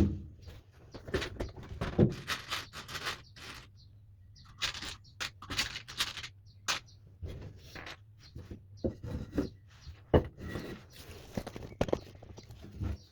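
Irregular clicks, knocks and short scrapes of small objects being handled and set down on a hard surface. No motor runs.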